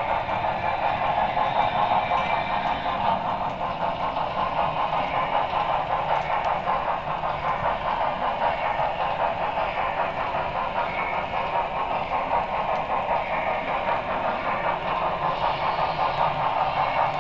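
HO-scale Broadway Limited Paragon 3 2-10-4 model steam locomotive running along the track, heard from on board the train: a steady, fluttering mechanical sound.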